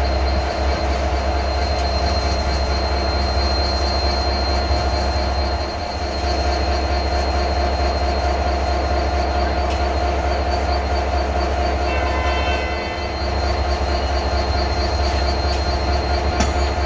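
Class 67 diesel-electric locomotive standing with its EMD two-stroke V12 engine running, a steady deep engine note with a steady high whine over it.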